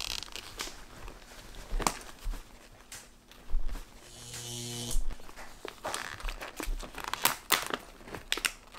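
Plastic treat packaging crinkling and rustling, with scattered sharp clicks as it is handled. About four seconds in comes a brief buzzing electric-zap sound effect.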